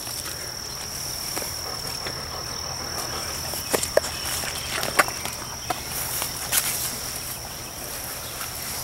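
Steady high-pitched insect song, crickets, with a handful of short sharp clicks and rustles as a Labrador moves among blackberry brambles picking and eating berries.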